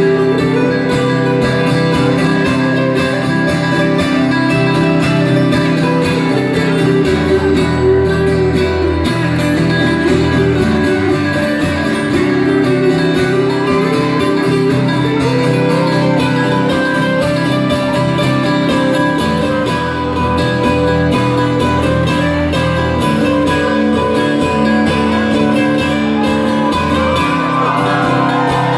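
Live band playing an instrumental passage led by guitars over sustained low notes, with no singing.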